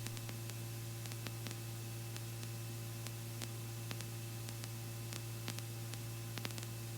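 Steady low hum with an even hiss and a few faint ticks on the Robinson R44 helicopter's intercom audio line between transmissions.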